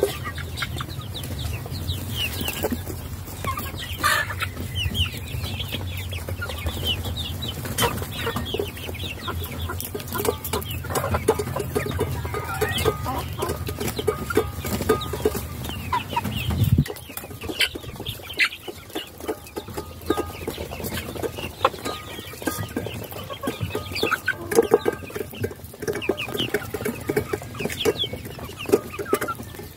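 A flock of young hens (pullets) clucking, many short overlapping calls all through. A low steady hum underneath cuts off suddenly a little past halfway.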